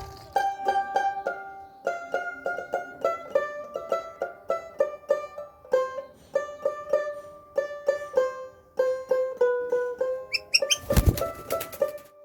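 Background music: a quick, bright melody on a plucked-string instrument, note after note. About eleven seconds in, a short noisy burst rises over the music.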